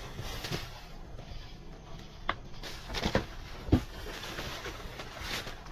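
Plastic trash bags rustling and items being handled and shifted by hand, with a few sharp clicks and knocks around the middle.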